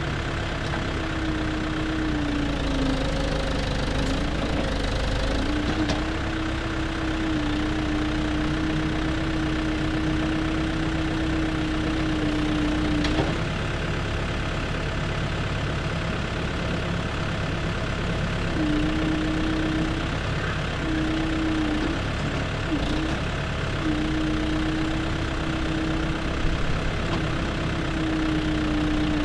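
Excavator's diesel engine running steadily, with a held tone over it that wavers, dips in pitch now and then and breaks off several times in the second half, and a few faint clicks.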